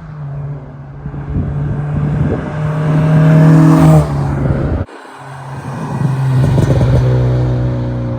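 Acura RSX Type-S's 2.0-litre four-cylinder running through a catless Skunk2 Alpha header, test pipe and HKS Hi-Power cat-back, pulling under acceleration with the exhaust note rising and getting louder. It cuts off sharply about five seconds in, then builds again in a second pull.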